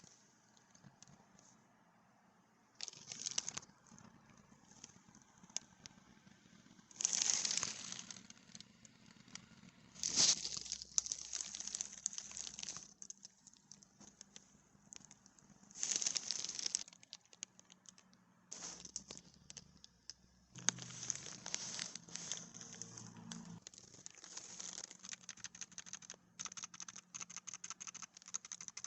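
Packaging crinkling and rustling in short bursts as a keyboard is unboxed. Near the end comes rapid typing on the Redragon Aditya K513's membrane keys, a quick run of soft clicks.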